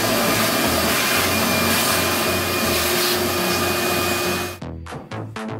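Wet/dry shop vacuum running steadily, sucking dirt out of a car's air filter box. It cuts off about four and a half seconds in, and electronic music with a steady beat takes over.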